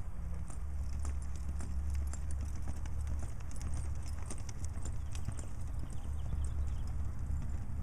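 Hoofbeats of a horse loping and trotting on a soft dirt arena, a steady stream of muffled footfalls, over a constant low rumble.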